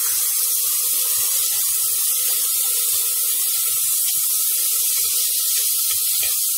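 Freshly washed green peas sizzling in hot ghee in an aluminium pressure cooker: a loud, steady hiss as the water on them flashes off as steam.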